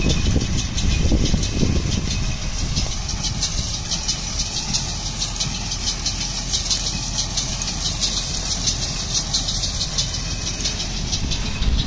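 Tractor engine running under load as it pulls a small square baler, with the baler's mechanism clacking in a fast, regular rhythm as it packs straw into bales.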